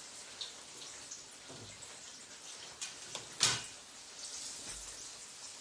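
Battered fish fillets frying in shallow oil in a pan: a steady sizzle with scattered small pops and crackles, and one louder sharp click about three and a half seconds in.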